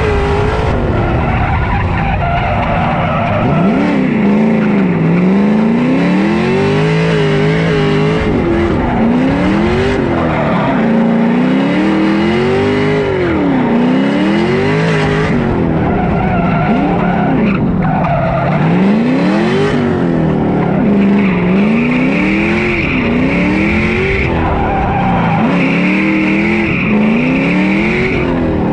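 Drift car's turbocharged engine revving up and down in repeated rises and falls about every two seconds as the car slides through the course. The tyres squeal throughout, loudest in the last several seconds.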